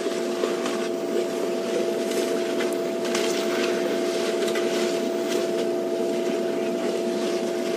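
Elephants browsing in bush, with rustling and snapping of branches and leaves over a steady hum.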